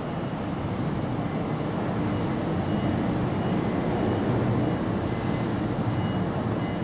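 Steady low outdoor rumble, a little louder after about two seconds, with faint short high chirps repeating over it.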